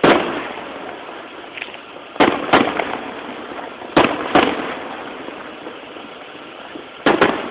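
Aerial firework shells bursting overhead: seven sharp bangs with echoing tails. There is one at the start, then a pair a little after two seconds, another pair about four seconds in, and a last pair near the end.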